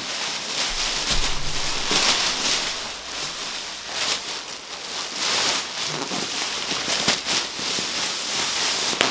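Thin black plastic bin bag rustling and crackling unevenly as it is handled and a pillow is pushed inside it.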